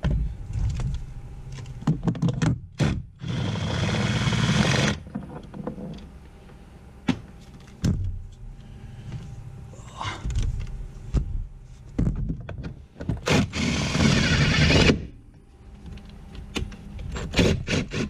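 Ryobi cordless impact driver run in two bursts of about a second and a half each, backing out screws from the interior trim of a car. Knocks and scrapes of plastic trim being handled come between the bursts.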